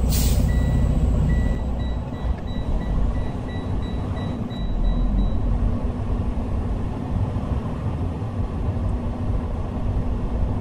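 Semi truck's diesel engine running, heard from inside the cab, with a short air hiss at the start and a repeated electronic beep for the first five seconds or so.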